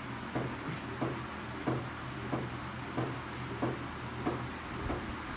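Homemade wind turbine with an aluminium-sheet rotor turning steadily, giving a regular light knock about one and a half times a second over a steady low hum.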